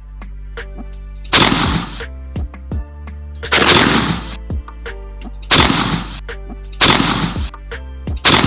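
Shotgun firing at flying ducks: five loud blasts, one to two seconds apart, the last right at the end, each ringing out briefly. Background music plays under them.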